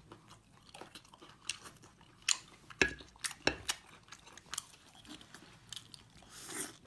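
A person eating close to the microphone: biting into and chewing a crusty golden bun topped with chopped vegetables, with wet mouth clicks and a few sharp crunches in the middle.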